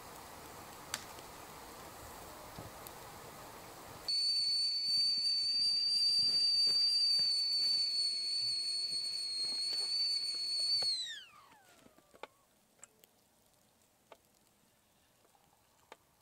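Whistling kettle at the boil on a wood-fired stove: a steady, high whistle starts suddenly, holds for about seven seconds, then slides down in pitch and dies away. A few faint ticks from the fire follow.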